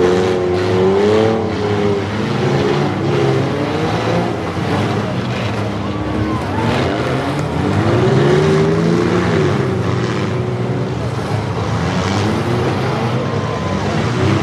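Demolition derby vehicles' engines revving hard, the pitch climbing and dropping as they ram one another, over a steady din of running engines. A few sharp knocks of metal on metal are mixed in.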